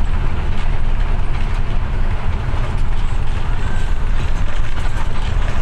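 Intercity bus's diesel engine and road noise, a steady low rumble heard from inside the cabin. The riders describe the engine as coughing ('batuk-batuk') around 1,500 rpm, with a sensor suspected.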